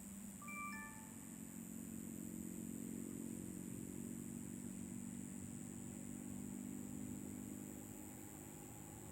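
Faint engine hum of a passing vehicle, steady for several seconds and fading out near the end, with a few short high tones about a second in.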